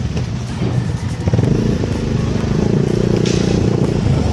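Small automatic motor scooter's engine running steadily as the scooter rides along.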